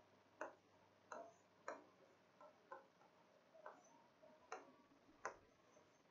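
Faint, irregular clicks and taps of a pen on an interactive touchscreen whiteboard as a word is written, about nine in all.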